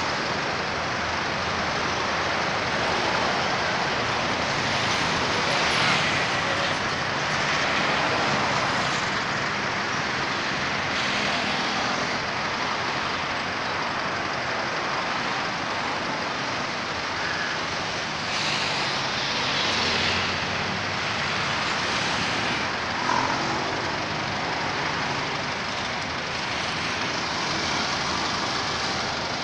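Steady noise of busy road traffic, swelling a few times as individual vehicles pass.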